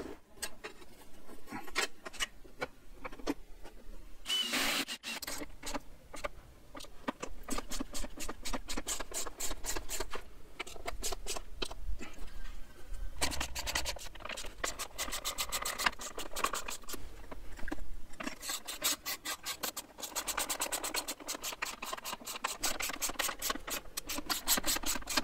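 Hand-tool work on motorcycle parts: runs of rapid, evenly spaced clicking with rubbing and scraping between, plus one short rising squeak about four seconds in.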